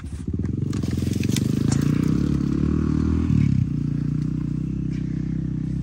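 Dirt bike engine held at high revs while its rear wheel spins in mud, throwing roost; the engine note dips and recovers a little over three seconds in.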